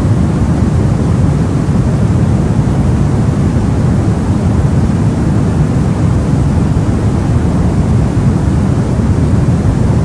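Steady sleep-aid white noise, weighted toward the low end so it sounds like a deep, even rush, with no changes or breaks.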